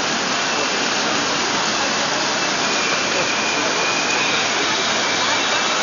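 Steady wash of noise from a crowd of marchers walking in the rain, with faint voices mixed in.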